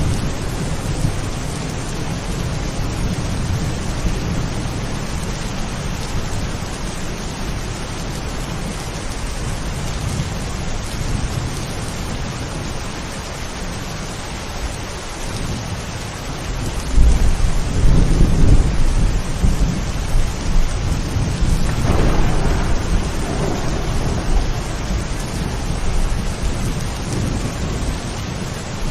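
Steady rain of a thunderstorm with thunder rumbling under it. The loudest peal of thunder comes a little past halfway, and another follows a few seconds later.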